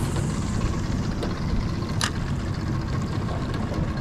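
Small boat's outboard motor running steadily as the boat moves along, with a single sharp click about two seconds in.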